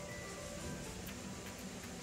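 Soft background music: a simple melody of short held notes over a steady low part.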